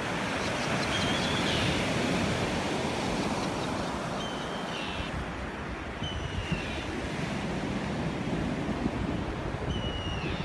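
Surf washing on a sandy beach, mixed with wind buffeting the microphone. A short, high whistle-like call sounds four times over it.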